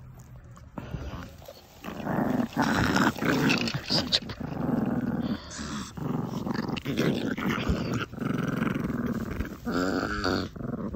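Two chihuahuas play-growling at each other while play-wrestling, in a run of rough, loud bouts that starts about two seconds in; the growling is playful, not aggressive.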